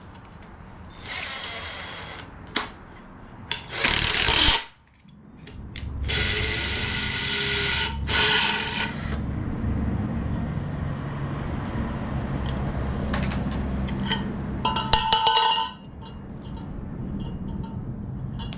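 Impact wrench driving the centre bolt of a pipe expander inside exhaust pipe, in several short bursts, with a steady low hum under the later run and metallic clinks near the end.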